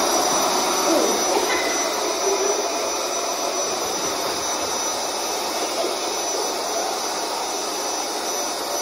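Handheld electric air pump running steadily, blowing air into a vinyl inflatable pool, with a faint high whine over the rush of air.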